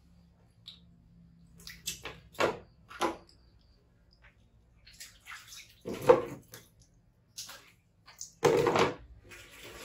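Water splashing in several short bursts as a baby monkey is washed by hand, with a longer splash near the end.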